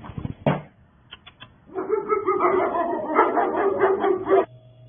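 A dog vocalising: a loud run of rapid, pitched barks and yelps lasting about three seconds, beginning a little under two seconds in and cutting off suddenly.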